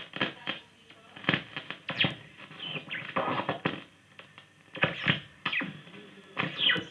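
CGE valve radio being tuned across the shortwave AM band: a run of static crackles and clicks, heterodyne whistles gliding in pitch, and brief snatches of broadcast audio between stations.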